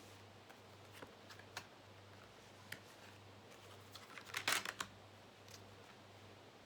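Tarot cards being handled and laid out by hand: scattered light clicks and flicks, with a short flurry of crisp card snaps and rustle about four and a half seconds in, over a faint low hum.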